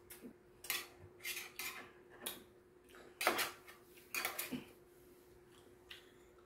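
Metal chopsticks and spoon clinking and scraping against a metal compartment meal tray, in a string of light irregular clicks, the loudest a little past three seconds in.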